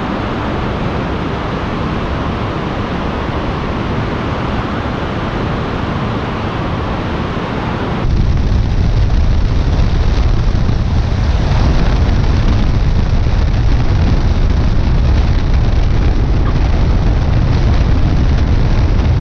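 Wind rushing over an exterior-mounted camera on a Cessna 172 landing, mixed with the airplane's engine and propeller. About eight seconds in the sound jumps to a louder, deeper rumble as the plane rolls along the runway.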